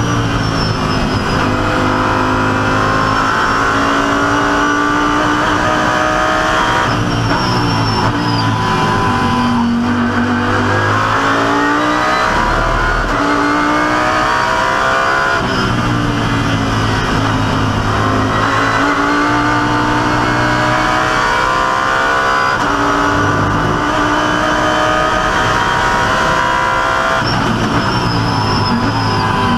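Audi R8 LMS GT3 EVO race car's V10 engine at racing speed, heard from inside the cockpit: it climbs in pitch under acceleration, steps at each gear change, and drops through downshifts under braking, several times over.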